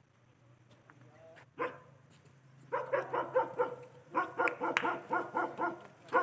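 A dog barking: one bark about a second and a half in, then a fast, steady run of barks, several a second, from about halfway through.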